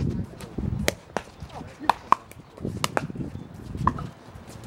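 Pickleball rally: sharp pops of paddles striking the hard plastic ball, about five hits at uneven spacing, some with a short ring.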